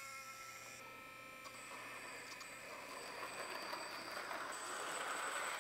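3D-printed electric toy train setting off on its plastic track: a steady high electric whine, with the rolling noise of the train on the rails growing louder toward the end.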